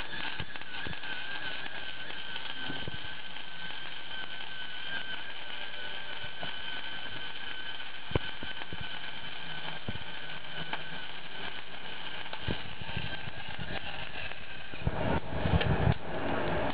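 Flux-core wire-feed welding arc from a spool gun running on two car batteries at 24 volts, crackling steadily, with a steady high whine from the gun's wire-feed motor. The welding stops about fifteen seconds in and louder irregular knocks follow.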